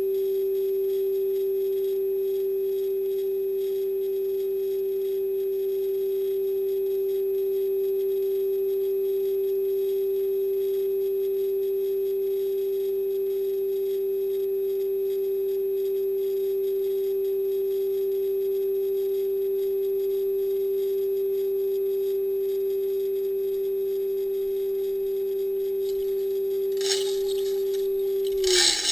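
A steady humming tone at one pitch with faint overtones, heard aboard a sounding rocket payload near apogee. Near the end the tone drops in pitch and stops, amid a short burst of rattling and scraping.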